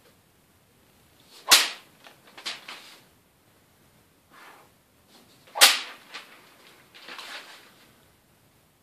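Katana blade cutting through hanging newspaper twice, about four seconds apart: each cut is a sharp swish-and-snap, followed by softer rustling of the paper.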